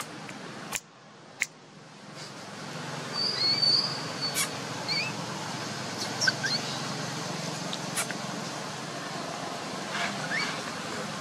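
Short high chirps and squeaks, a few at a time and loudest about three to four seconds in, with a few sharp clicks over a steady low hum and hiss.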